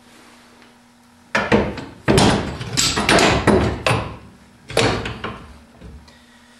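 A new steel multi-leaf rear spring for a Triumph Spitfire being slid into place over the top of the differential. The leaves knock and clatter against the car's metal underbody in a loud string of knocks starting about a second in.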